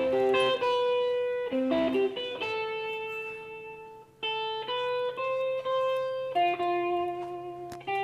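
Electric guitar playing a slow melody of single plucked notes, each left to ring for about a second or more.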